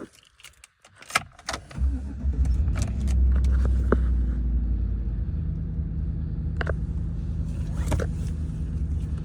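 Keys jangle and click, then the 2013 GMC Sierra pickup's engine starts about two seconds in. It flares up briefly and settles into a steady idle.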